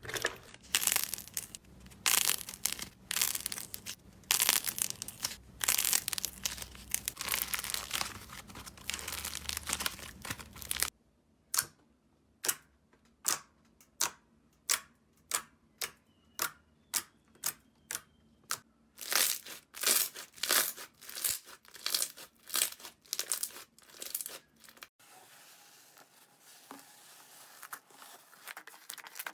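Slime being pressed, poked and squeezed by hand, crackling and popping. Dense crackling gives way about a third of the way in to single sharp pops about one and a half a second, then dense crackling returns, and a much softer, quieter crackle takes over near the end.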